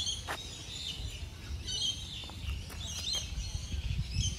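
Small birds chirping in several short bursts of quick, high notes, over a steady low rumble.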